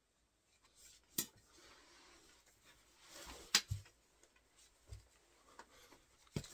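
Faint handling noises from a person in sneakers stepping about and sitting down on a floor rug: rustling of sweatpants, soft thumps, and two sharp clicks, the louder one about three and a half seconds in.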